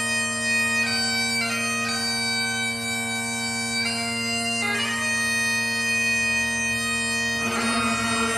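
Bagpipes playing a slow melody over steady, unchanging drones.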